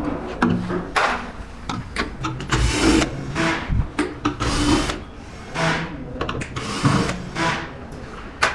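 Hand tools and parts being handled while the wire connections between a terminal and a relay board are undone: a string of short, irregular rubs and clicks.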